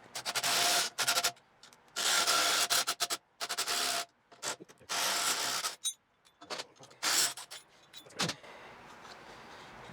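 Repeated rasping, scraping strokes, about five of them, each up to a second long, with small clicks and knocks between, from hand work on the motorcycle rear shock and spring.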